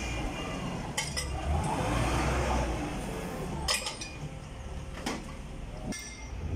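Heavy engine of a truck-mounted crane running with a steady low rumble, with several sharp metallic clinks from the crane's rigging and the cable drum as the drum is lifted off a truck bed.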